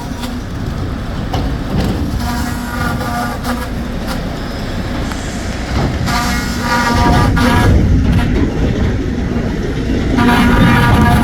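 Sawmill machinery running loudly: a dense low rumble with a steady hum, and a whining tone that rises and fades three times, about four seconds apart.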